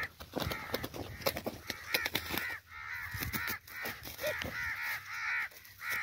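Crows cawing over and over, short harsh calls coming several a second and growing denser after about two seconds, with scattered rustling clicks in the first couple of seconds.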